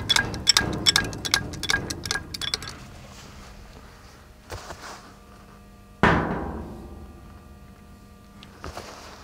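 Steel on steel: a quick run of light clinks, about four or five a second for the first two and a half seconds, as a heavy steel bracket is worked against a steel loader bucket. About six seconds in comes one loud clang, and the bucket rings on for a couple of seconds.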